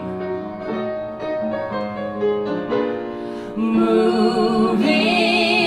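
Piano playing sustained chords as song accompaniment. About three and a half seconds in, a voice joins on a long held note with vibrato.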